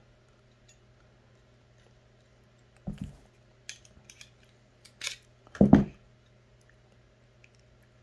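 Metal clicks and clacks of a folding multi-tool being handled as a stiff, tightly riveted tool is worked out of its handle. A few sharp clicks come from about three seconds in, and the loudest clack falls near six seconds.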